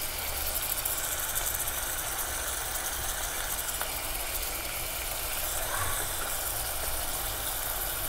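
Chopped onions and ginger-garlic paste sizzling in oil in a pot: a steady, fine crackling hiss over a low steady hum.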